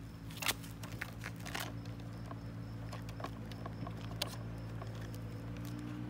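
Scattered light clicks and taps of the plastic toy remote-control semi truck's trailer being handled by hand, over a steady low hum.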